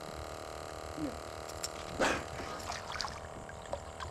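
A dolphin surfacing beside the boat: a splash about two seconds in, followed by smaller splashing and trickling water.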